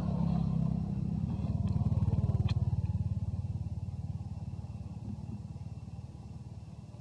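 A motor vehicle's engine passing along the road close by, a pulsing low rumble that is loudest about two seconds in and then fades as it moves away.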